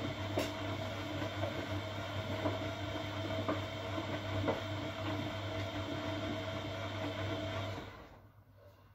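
Siemens Siwamat Perfecta SL washing machine running on its delicates programme: a steady motor hum with a light tick about once a second, which cuts off suddenly near the end.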